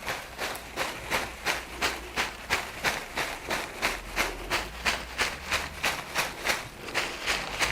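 A flower-tipped massage tool repeatedly brushing or patting over the body in quick, even strokes, about three a second.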